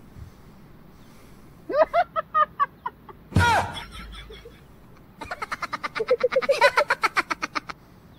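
Short bursts of rapid laughing about two seconds in, then a loud cartoon-style sound effect falling steeply in pitch. From about five seconds in comes a longer run of quick, even laughing.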